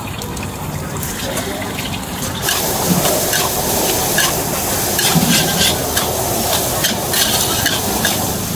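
Food sizzling in a hot wok while a metal spatula clinks and scrapes against the pan as it is stirred. The sizzle grows louder about two and a half seconds in.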